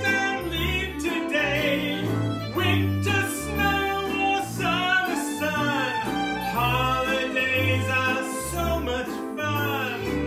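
Small acoustic band playing a bouncy song: a man singing lead over fiddle, upright double bass and banjo, the bass stepping through a new low note about once a second.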